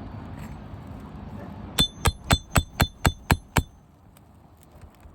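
Hammer tapping a steel nail puller eight times in quick succession, about four strikes a second, each with a short metallic ring, working a roofing nail loose from an asphalt shingle.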